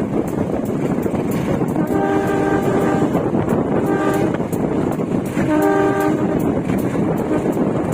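Train running over the track, its wheels rumbling and clattering as heard from inside a carriage toilet, while the locomotive's horn sounds three short blasts about two, four and five and a half seconds in. The blasts are warnings to traffic at level crossings.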